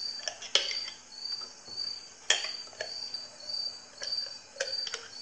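A spoon knocking and scraping against a glass jar and plate while scooping out mayonnaise, a few sharp clinks. A cricket chirps steadily about twice a second in the background.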